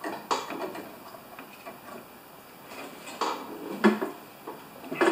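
Hand tools clinking and knocking against a snow thrower's parts while it is being worked on: a handful of separate sharp clicks and clanks, the loudest about four seconds in.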